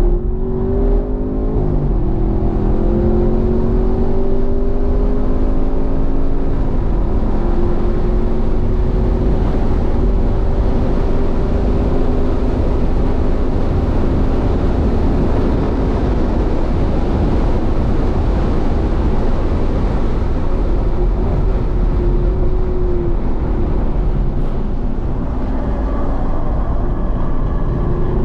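Sixth-generation Camaro SS 1LE's 6.2-litre LT1 V8, heard from inside the cabin, pulling hard on track. Its note climbs, drops sharply about two and about seven seconds in, then climbs again. Through the middle, wind and tyre noise at speed largely cover it, and it rises once more near the end.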